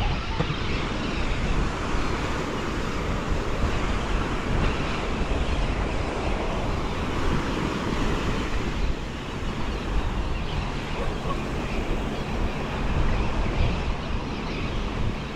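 Ocean surf breaking and washing ashore, with wind rumbling on the microphone.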